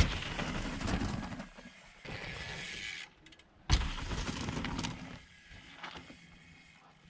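Hardtail mountain bike landing a drop with a hard thud, then the tyres rolling and rattling over rough ground. A second landing thud follows a few seconds later, again with a short stretch of rolling noise.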